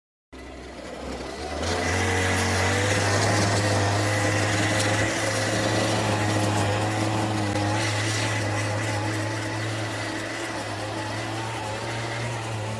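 Backpack brush cutter engine running, revving up about a second and a half in and then held at steady high throttle while it cuts grass.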